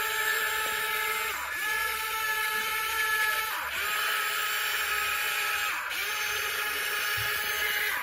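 Electric motors of a YIGONG remote-control toy excavator whining as its arm and bucket move, in four runs of about two seconds each, the pitch dipping briefly each time the motor stops and starts again.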